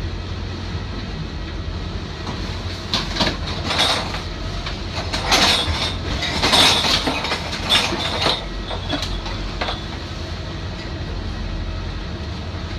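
Lagoon 450 sailing catamaran under way in a choppy sea, heard from inside its saloon: a steady low rumble, with irregular louder rushes of noise as the hulls meet the waves, several of them between about three and ten seconds in.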